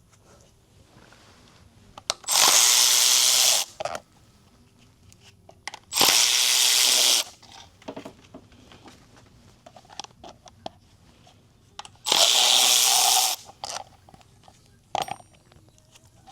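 A power tool runs in three bursts of a second to a second and a half each, about two seconds, six seconds and twelve seconds in, with small knocks and clicks of handling between them.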